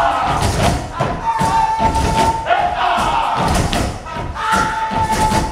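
Dancers' feet stomping and thudding on a stage floor, with voices chanting a repeated shout: a held high note falling to a lower one, about every two seconds.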